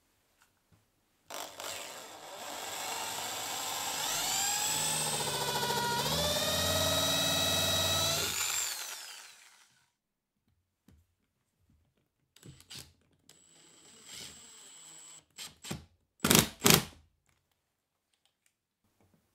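Power drill with a countersink bit spinning up with a rising whine, dropping in pitch as it cuts a countersink into the wood, then winding down. After a pause, a power driver runs a screw in with several short bursts, the last two the loudest.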